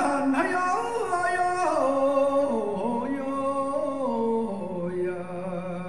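A man singing held notes that step downward in pitch, ending on a long low note.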